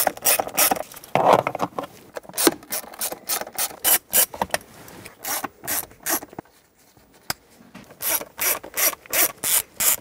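Hand ratchet with a T20 Torx socket clicking in runs of quick back-strokes while backing out the screws that hold the center console lid panel, with a short pause about six and a half seconds in.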